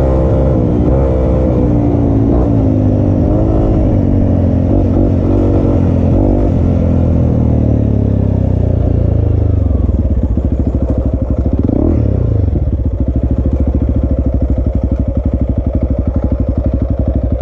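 Motorcycle engine running, its pitch rising and falling with the throttle. About ten seconds in it settles into an even, pulsing idle.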